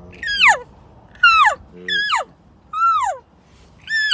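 Hand-held elk cow call blown in a run of about five short mews, each sliding sharply down in pitch, spaced under a second apart, imitating a cow elk.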